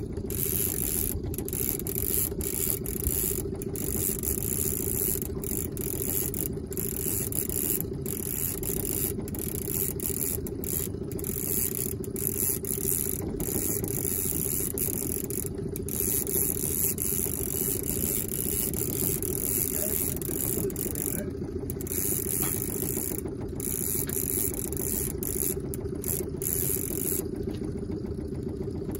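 Baitcasting reel being cranked steadily against a hooked fish, its gears whirring and clicking, over the steady hum of a boat's outboard motor running at slow trolling speed.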